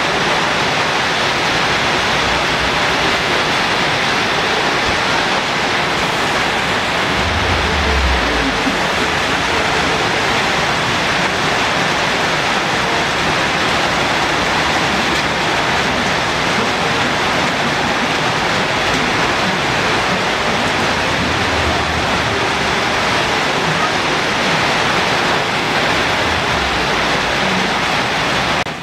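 Coconut-rice batter sizzling in the cups of a hot kanom krok pan: a steady, loud hiss.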